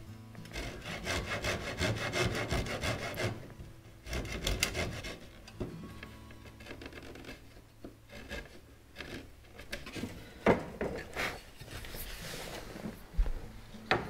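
A fine-toothed backsaw cutting small relief kerfs into a wooden stringer with quick back-and-forth strokes for the first few seconds. After that comes a chisel paring out the waste between the cuts, heard as scattered sharp clicks and scrapes.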